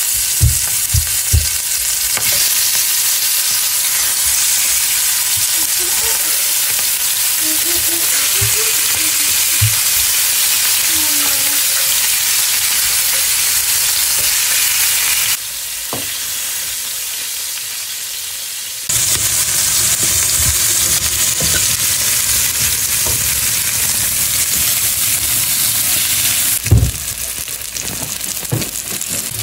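Turmeric-coated fish pieces, then eggplant pieces, sizzling as they fry in hot oil in a non-stick frying pan, with a few soft knocks near the start as pieces are laid in. The sizzle goes softer for a few seconds about halfway.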